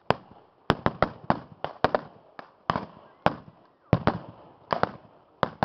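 Blank gunfire in a staged battle: many guns firing in a ragged, irregular string of sharp shots, about three a second, each with a short echoing tail.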